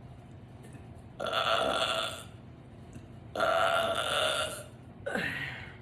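A woman burping three times, the first two long belches of about a second each, the third shorter with a falling pitch.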